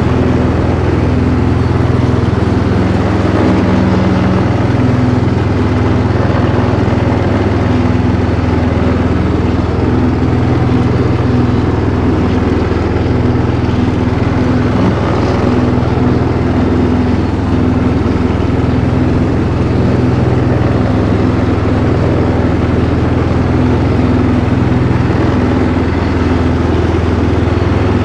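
Riding lawn mower engine running loud and steady at a constant speed while mowing grass.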